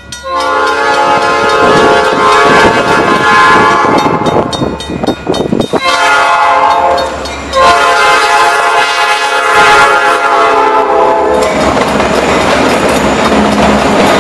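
Diesel freight locomotive's multi-chime air horn sounding for a grade crossing: two long blasts with a brief break about five seconds in. From about eleven seconds the locomotives pass close by, their engines rumbling and the wheels clattering over the rail joints.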